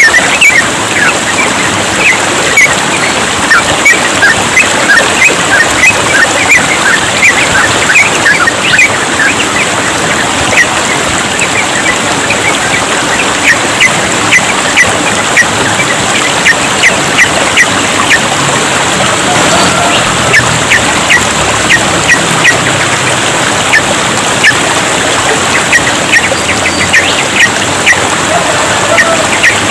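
Yellow-vented bulbul song: fast, continuous runs of short chirping notes, over the steady sound of trickling water.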